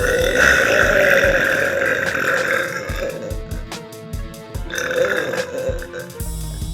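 A girl burping: one long, drawn-out burp lasting about two and a half seconds, then a shorter burp about five seconds in.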